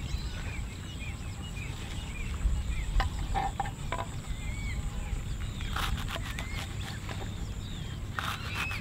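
Knife chopping green onions on a wooden board: a few single cuts, then quick runs of chops about six seconds in and again near the end. Birds chirp throughout over a steady high-pitched whine.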